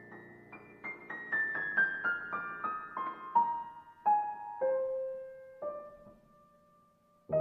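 Background piano music: a slow descending line of single notes that spreads out, ending on a held note that fades away near the end.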